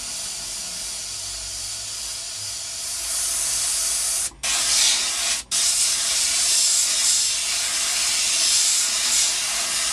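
Airbrush spraying paint onto fabric in a steady hiss of compressed air. It gets louder about three seconds in and stops for a moment twice, around four and five and a half seconds in.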